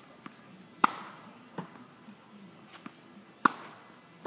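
Tennis ball hit by racket during a groundstroke rally: two sharp, ringing hits about two and a half seconds apart, with fainter knocks in between.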